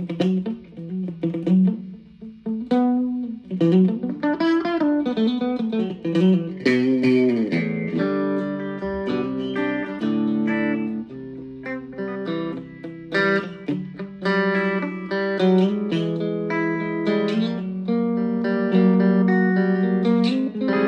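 Electric guitar, an Ibanez Gio fitted with Tokai pickups, played through a small Boss Katana amp on the bridge and middle single-coil pickups combined. It plays a lead line with string bends early on, then held notes and chords, in a vintage, springy tone.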